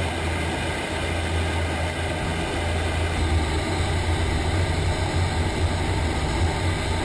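Hovercraft running steadily: a deep hum from its engine and fans under a loud rushing noise.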